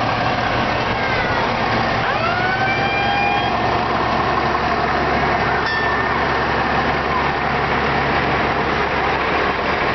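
A fire engine drives slowly past at close range, its diesel engine running steadily. About two seconds in comes a short rising tone that holds for a second or so.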